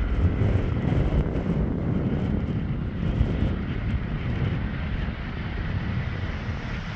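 Distant jet engines of a KLM Embraer jet on the runway, a steady rumble with a faint whine that grows stronger near the end, under wind buffeting the microphone.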